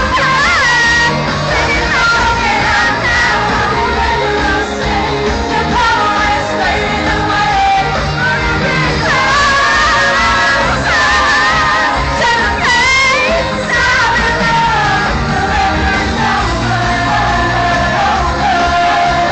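Live pop song in a large arena, heard from among the audience: women singing the melody over a loud amplified band, with the hall's echo.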